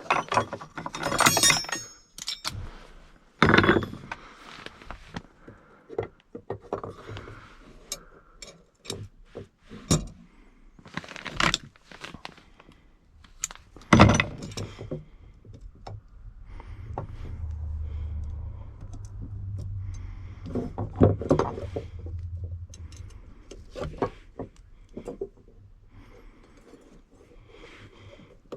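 Clinks, knocks and scrapes of drill bits and a drill being handled as the bit is changed. A low steady hum runs for about six seconds past the middle.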